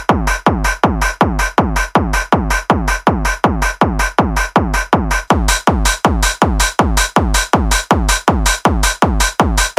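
Electronic dance music (techno/trance style) with a fast, steady beat, about four beats a second.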